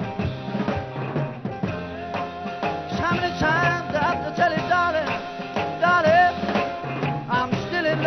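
Live 1960s British beat-group music: a male lead singer over electric guitar and a drum kit, the sung line coming in about three seconds in with long, wavering held notes.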